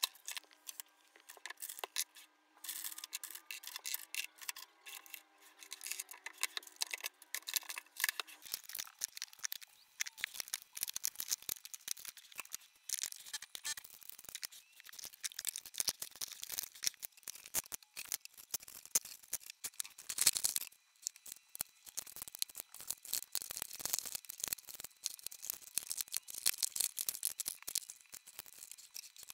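Sped-up clatter of plastic makeup products, acrylic organisers and palettes being picked up, dropped and shuffled in Alex drawers: a dense, rapid stream of small clicks and knocks, with one heavier knock about twenty seconds in.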